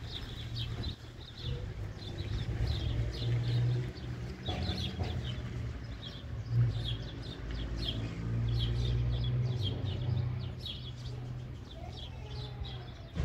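Small birds chirping over and over in quick short notes, over a low steady rumble.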